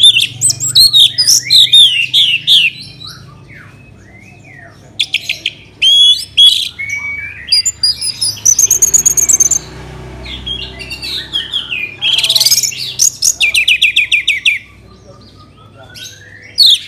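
Orange-headed thrush singing loud bursts of varied song: quick rattling trills, whistled notes and sliding notes, with pauses of one to two seconds between phrases.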